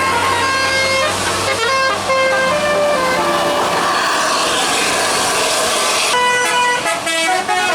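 Indonesian bus 'telolet' basuri multi-tone horn playing a melody of quick stepped notes, with a short lull midway before the notes resume, over the noise of the bus engine.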